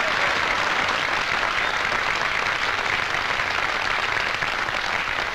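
Studio audience applauding and cheering on an old wartime radio-show recording, with a worn, hissy sound.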